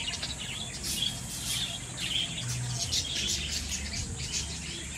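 Birds chirping, many short calls overlapping several times a second, over a steady high hiss.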